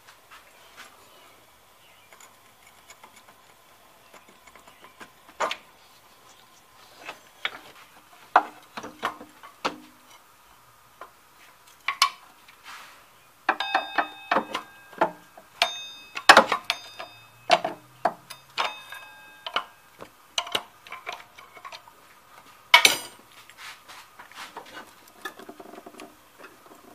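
Hand tools and metal parts clicking, clinking and knocking irregularly while working around a car's engine, with a run of short ringing metallic clinks between about 13 and 19 seconds in and one sharp knock near 23 seconds.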